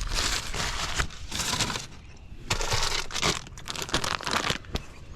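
A food wrapper crinkling and rustling as it is handled, in irregular bursts with short pauses.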